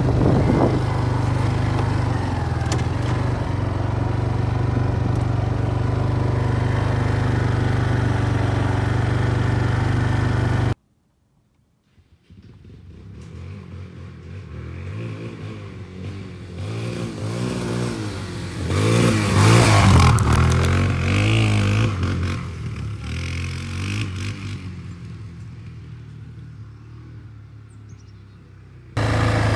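Kawasaki ATV engine running steadily under way, with some rattle. About eleven seconds in the sound cuts out for a second and a half. After that an engine revs up and down, loudest about two-thirds through.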